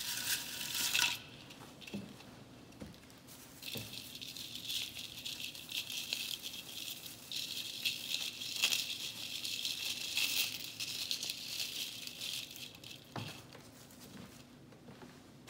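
Artificial pine garland branches and wired ribbon rustling and crinkling under hands as a glittered ornament ball is worked into the garland. The rustling comes in spells, with a few light knocks between them.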